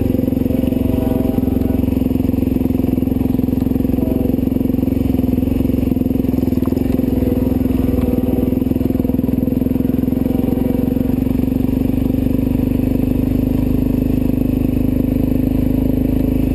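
Suzuki DR-Z400's single-cylinder four-stroke engine running at a steady cruising speed, its pitch holding constant, with low wind rumble on the microphone.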